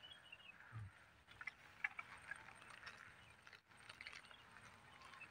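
Near silence: faint outdoor ambience with scattered soft ticks and clicks.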